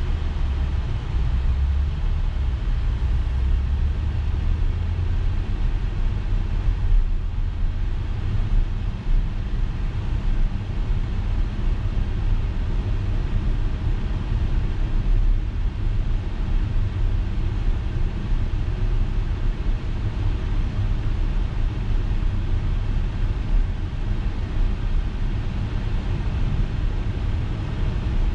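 Audi Q7 driving: a steady low rumble of road and engine noise.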